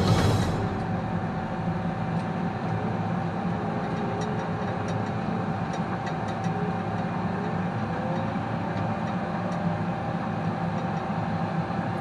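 New Holland T5 tractor's diesel engine running steadily, heard from inside the cab, with a constant whine over the engine noise and a few faint ticks.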